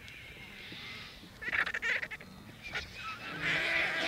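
Vultures squabbling over a carcass: harsh, hissing squawks, a short burst about halfway through and a louder, longer one near the end.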